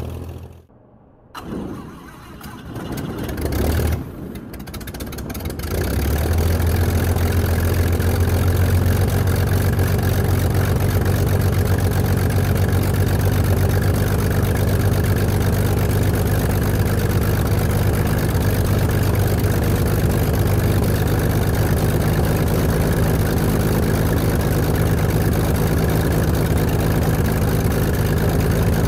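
Freshly built Corvair air-cooled flat-six aircraft engine on its first runs. Its sound drops away sharply about a second in, builds back unevenly, catches about five to six seconds in, and then runs steadily and smoothly.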